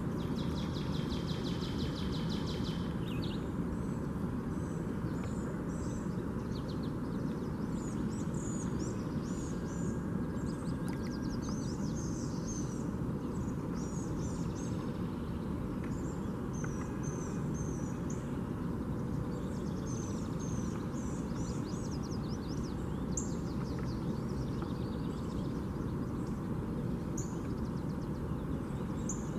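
Small birds chirping and twittering over a steady low rumble of outdoor noise, with a fast trill of rapidly repeated notes at the start.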